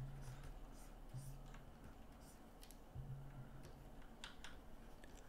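Near silence with a few faint, scattered clicks from a digital painting setup, tablet pen and keyboard, over a faint low hum that comes and goes.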